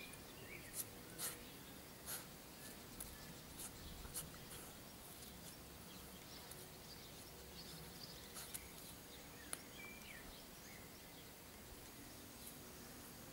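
A dog digging in garden soil: faint, irregular scratches and scrapes of its paws in the earth, thickest in the first few seconds. A few faint bird chirps come through about ten seconds in.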